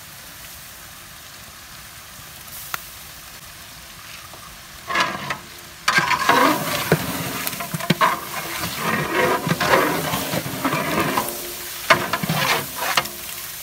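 Long flat metal paddle stirring and scraping beef and onion masala in a large metal biryani pot over a wood fire, with the meat sizzling. It starts about five seconds in after a quieter stretch and keeps up, with many short scrapes and knocks, almost to the end.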